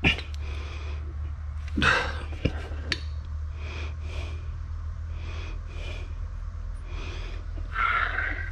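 A shock absorber being handled on a concrete floor: a few sharp knocks and clatters, then a run of soft rasps at even spacing, a little under two a second, over a steady low hum.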